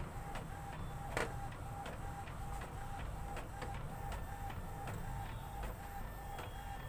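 Epson inkjet printer running a colour copy, its mechanism beating evenly about two to three times a second, with one sharp click about a second in.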